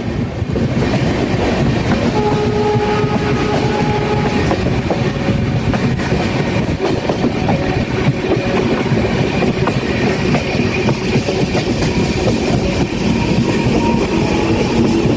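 Train running on the rails with a steady loud rumble and the clatter of wheels over the track. About two seconds in, a brief whine of a few steady tones rises over it for two seconds or so.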